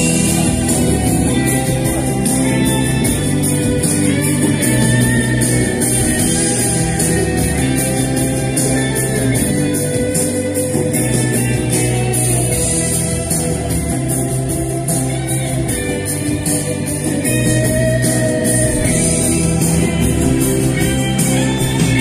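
Pop song playing through an instrumental stretch with a steady beat and held melody notes, with no sung words.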